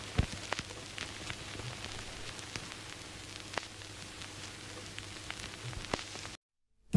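Vinyl record surface noise: a steady hiss with scattered crackles and pops over a low steady hum, cutting off suddenly a little over six seconds in.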